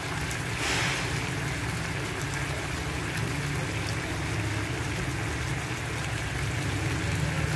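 Shrimp simmering in butter and oyster sauce in a nonstick frying pan: a steady bubbling sizzle with a low steady rumble underneath.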